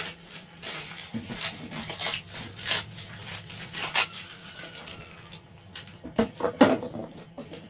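Packaging and plastic RC car parts being handled and unpacked: irregular rustling and rubbing with scattered sharp clicks and knocks.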